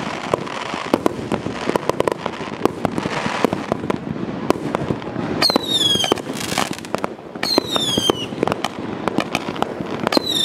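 Firework cake firing: a rapid run of sharp cracks and pops, with whistles that fall in pitch about five, seven and ten seconds in.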